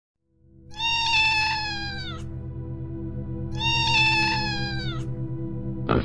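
A kitten meowing twice: two long, drawn-out meows, each falling in pitch at its end, over steady background music with a beat. A brief rough sound comes right at the very end.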